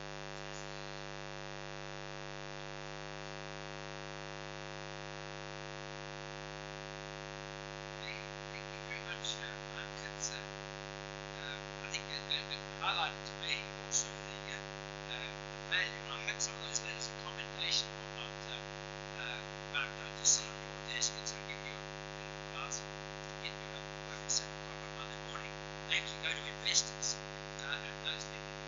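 Steady electrical mains hum with a stack of overtones. From about eight seconds in, scattered short, faint high-pitched sounds come and go irregularly over it.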